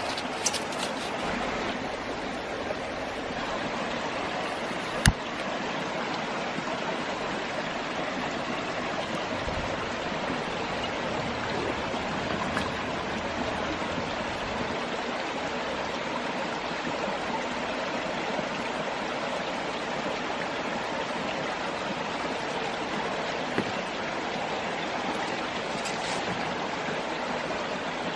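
Shallow mountain stream babbling steadily over rocks. A single sharp click about five seconds in, with a few fainter knocks.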